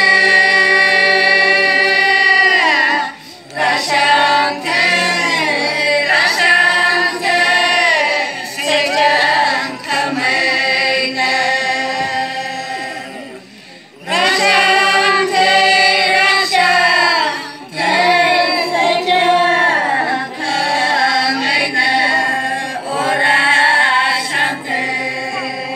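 A group of women singing together in long, drawn-out phrases, with a short break about halfway through.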